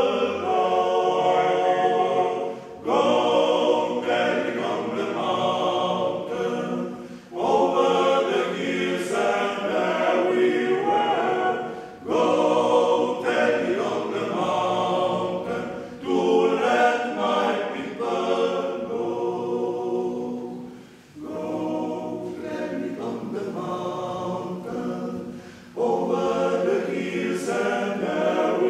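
Male vocal octet singing a cappella in harmony, in phrases of four to five seconds separated by short breaks for breath.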